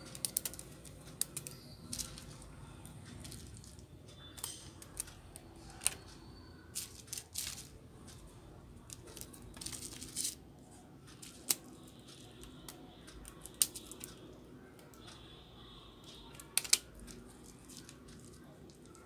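Rubber bands being stretched around a phone and snapped against its glass, giving irregular sharp snaps and short rubbery scrapes, the loudest snap near the end. The bands clamp a freshly glued replacement LCD while the adhesive sets.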